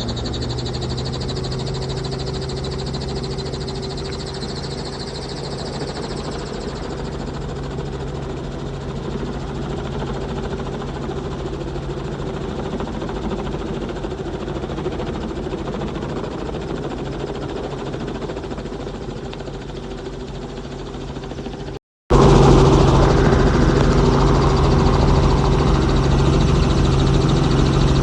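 Steady vehicle engine and cabin noise with a constant low hum. It drops out for an instant about three-quarters of the way through and comes back louder.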